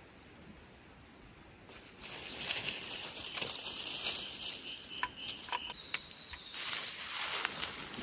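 Rustling, crackling noise with scattered sharp clicks, starting about two seconds in, with a faint steady high tone through the middle.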